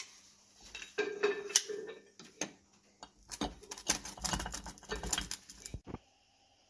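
Cast iron wheel hubs with aluminium adapter plates being handled on a wooden workbench: a plastic spring clamp is taken off and set down, and the heavy hubs are shifted. Irregular knocks, clinks and scrapes come in two busy spells, then stop just before the end.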